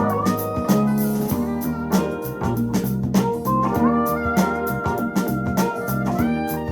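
Canton Plus X.2 bookshelf speakers playing a city-pop song. A steady beat runs under organ-like keyboard chords, bass and guitar, with a lead line holding long notes and sliding between them.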